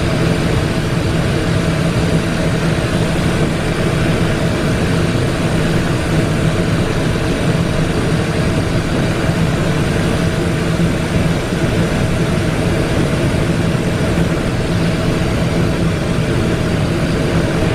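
Cockpit noise of a Cessna Citation XLS business jet on final approach: a steady drone of airflow and engines with a low hum under it, unchanging in level.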